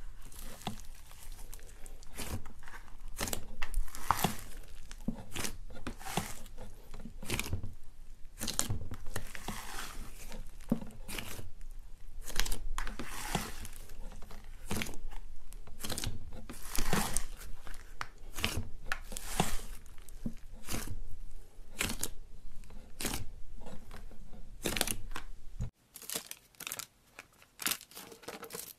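Pink slime with small foam beads being kneaded, stretched and pressed by hand: a dense run of crackles, sticky pops and squelches. It stops abruptly near the end.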